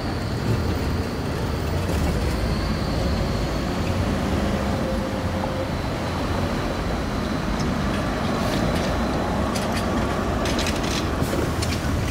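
City street traffic with an articulated electric trolleybus passing close by: a steady low rumble of tyres and traffic, with a thin high whine in the first few seconds and a few sharp clicks near the end.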